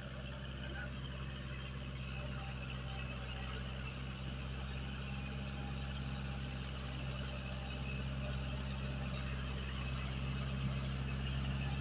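Kubota L5018 tractor's diesel engine running steadily, slowly growing louder.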